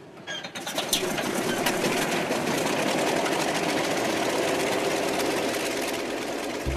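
Antonov An-2 biplane's nine-cylinder radial engine firing up with a few sharp pops about a second in, then running steadily with a fast, even pulse.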